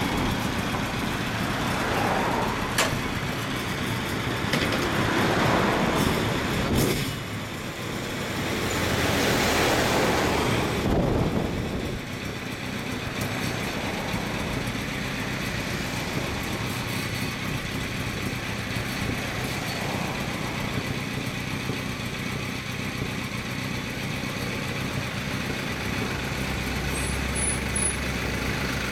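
2002 Suzuki GSX1400's oil-cooled inline-four, fitted with a Baby Face aftermarket exhaust, running at idle. It is revved up a few times in the first eleven seconds or so, then settles to a steady idle.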